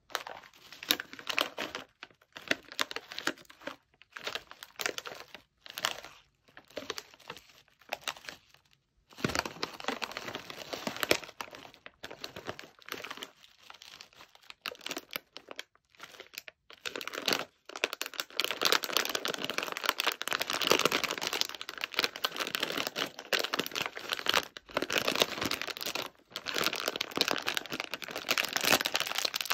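Crinkling of a plastic snack bag of Goraebap whale-shaped crackers as hands handle and turn it over, coming in stops and starts, then almost continuous crinkling as the bag is pulled open at its seam.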